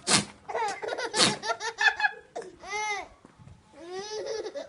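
A goat sneezing, short sharp noisy bursts at the start and again about a second in, with people laughing around it.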